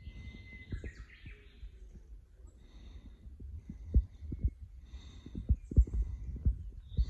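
Irregular low thumps from walking with a hand-held phone, growing stronger about four seconds in, with faint bird calls above them.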